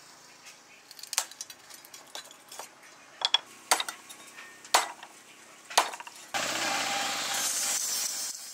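A steel meat cleaver chopping into sticks of wood on a wooden board: a handful of sharp chops about a second apart. About six seconds in, a steady loud engine-like running noise with a low rumble starts suddenly and runs to the end.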